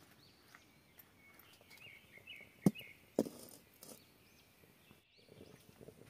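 Faint chirping of small birds in the background, with two sharp knocks about half a second apart near the middle.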